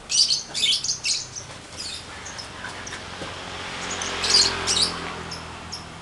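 Lovebirds chirping in bursts of rapid, shrill chirps. The loudest bursts come in the first second and again about four seconds in.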